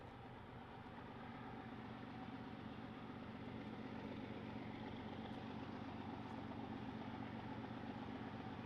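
Diesel locomotives of an approaching freight train running at a distance: a faint, steady engine drone that grows slowly louder as the train nears.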